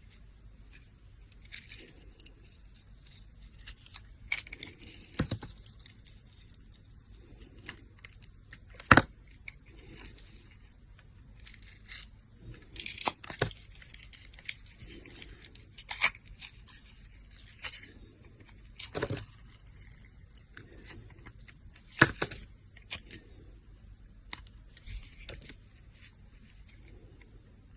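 A knife cutting and carving dry soap: irregular crisp, crunchy scraping strokes, broken by several sharp clicks of the blade through the bar.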